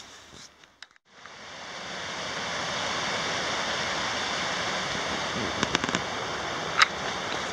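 Fast-flowing creek running over rocks: a steady rush of water that swells in about a second in and then holds, with a few light clicks near the end.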